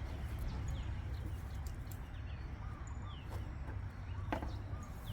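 Birds chirping with short falling calls over a steady low rumble, with one sharp click about four seconds in.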